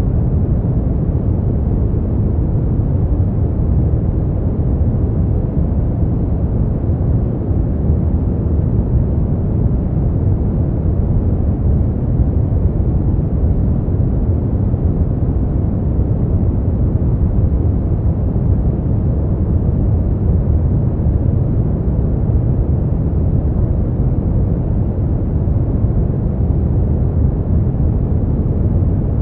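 Steady brown noise: an even, deep rumbling hiss strongest in the low end, with no changes.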